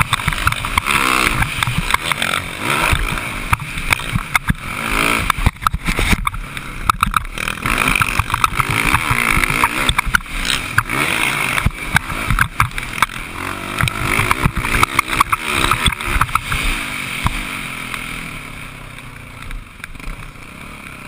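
Dirt bike engine heard from a camera on the bike, revving up and down repeatedly as the rider goes around a motocross track, with wind buffeting and knocks on the microphone. The engine settles lower and quieter near the end as the bike slows.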